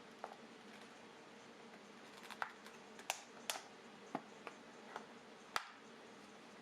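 Scattered light clicks and taps, about eight irregularly spaced, from headphones and their plastic packaging being handled; the sharpest come about three seconds in and again near the end. A faint steady hum lies underneath.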